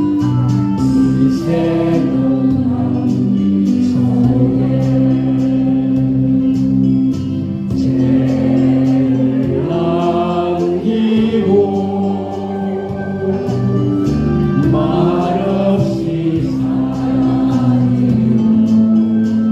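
A slow song playing, with sung vocals over sustained, choir-like chords.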